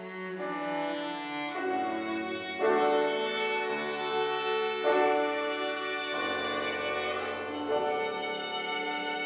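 Violin, cello and piano trio playing a classical miniature: sustained bowed notes over a low cello line, the harmony shifting every second or two.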